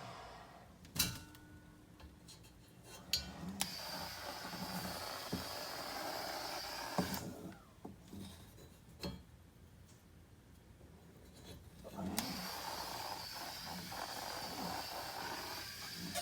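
Compressed air hissing in two long bursts, switching on abruptly about three and a half seconds in and again about twelve seconds in, with sharp clicks and knocks in between.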